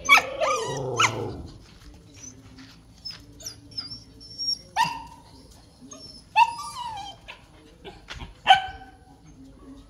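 A dog barking: a quick run of barks in the first second and a half, then single barks about five, six and a half and eight and a half seconds in, the last the loudest.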